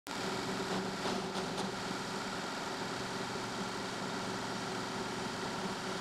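Powermatic 1150 drill press, with its 3/4-horsepower single-phase motor, running steadily with a step drill bit cutting into a small metal plate. A steady hum with a few faint ticks in the first two seconds.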